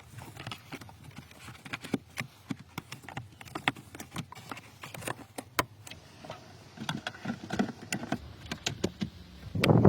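Irregular light clicks and knocks from hand work on the car, with a louder, fuller sound setting in near the end.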